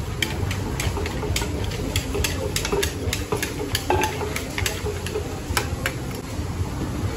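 A wooden pestle and a spoon pounding and turning som tam (green papaya salad) in a wooden mortar: irregular knocks and clicks, about two or three a second, over a low steady background rumble.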